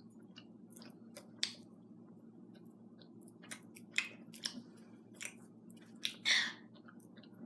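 Foil wrapper of a Kinder Surprise egg being unwrapped: short scattered crinkles and clicks, with a louder rustle about six seconds in.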